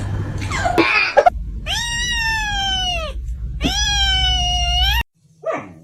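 A cat gives two long, drawn-out meows, each about a second and a half, over a steady low hum. They follow a second of scuffling with a couple of sharp knocks, and the sound cuts off abruptly at the end.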